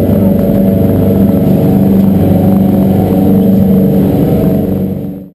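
Fishing boat's engine running steadily under way, a loud low drone that fades out near the end.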